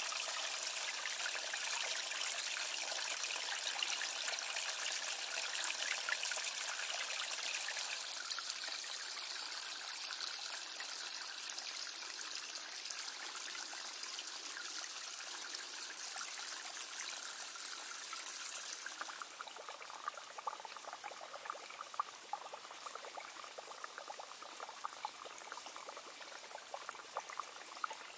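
Mountain spring water trickling and splashing over rocks in a shallow rocky rivulet, a steady hiss of running water. It steps a little quieter twice, about a third and two-thirds of the way through, and in the last part single splashes and drips stand out.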